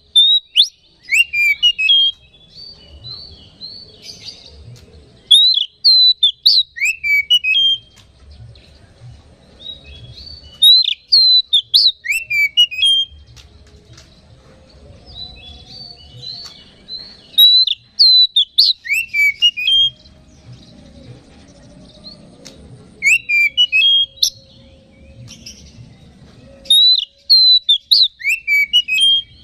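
Oriental magpie-robin (kacer) singing: loud phrases of sharp whistled notes that slide up and down, repeated every five seconds or so.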